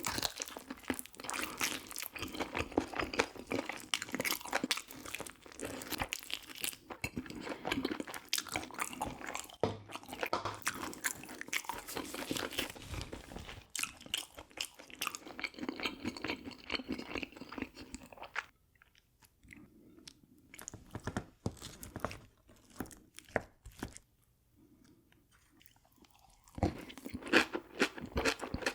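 A person chewing and crunching mouthfuls of braised pig's trotters (jokbal) and kimchi close to the microphone, a dense run of wet, crackling bites and mouth clicks. About two-thirds of the way through the chewing drops to a few faint clicks, then starts up again near the end.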